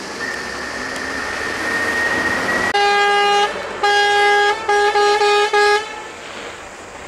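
A vehicle horn honking at a wild elephant in the road: two long blasts, then three short ones in quick succession. Before the honking there is a steady hiss with a thin high whine.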